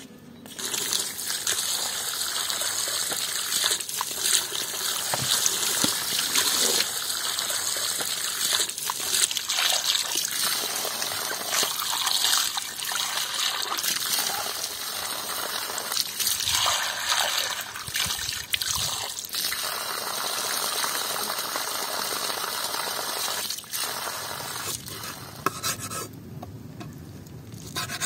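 Running water pouring over chunks of lamb in a plastic colander and splashing onto stone paving as the meat is rinsed, a steady rush that stops near the end.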